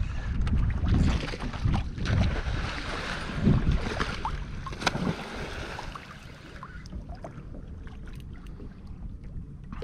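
Wind buffeting the microphone and water lapping against a kayak hull, with a few sharp knocks around the middle. The wind rumble drops off about six seconds in.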